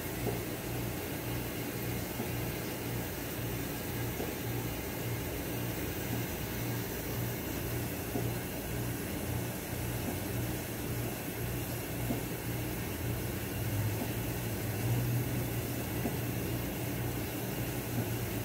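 Steady low machine hum with an even hiss over it.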